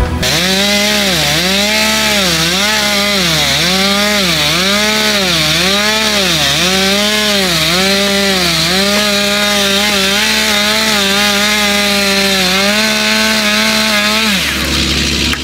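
Petrol chainsaw at full throttle cutting timber, its pitch dipping and recovering about every three-quarters of a second as the chain bites into the wood. It then holds a steady high pitch and cuts off about a second before the end.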